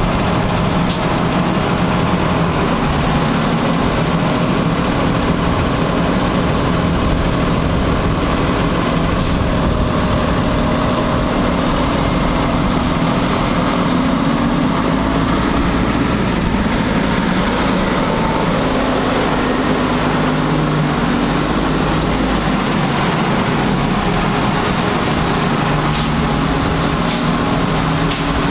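Heavy armored six-wheeled truck's diesel engine running as it drives slowly across pavement, a steady low engine sound with a slight pitch change about halfway. A few short, sharp high clicks come near the end.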